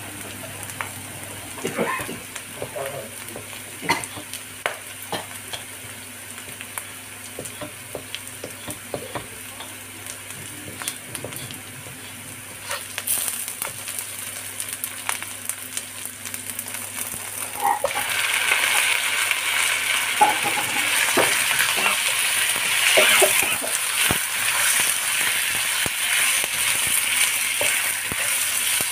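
Chopped garlic and chilies sizzling in oil in a wok, stirred with a wooden spatula that scrapes and taps against the pan. About two-thirds of the way through, the sizzling turns much louder and fuller, and raw chicken wings are then frying in the wok. A steady low hum runs underneath.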